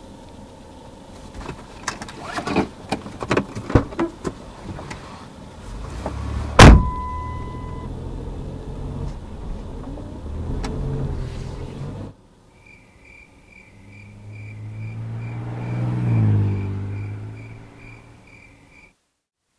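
Car sounds: scattered knocks and clatter, then one loud bang with a brief ringing tone and a car engine running. After a sudden cut, a steady beeping about twice a second while a car engine swells and fades as it passes.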